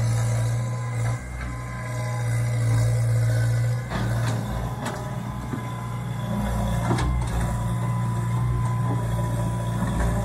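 Hitachi tracked excavator's diesel engine running steadily under digging load, with a few sharp knocks as the bucket works into the rocky creek bank.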